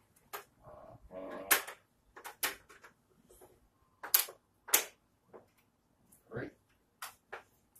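Snap Circuits parts being unsnapped from the plastic base grid: about half a dozen sharp snaps and clicks at irregular intervals.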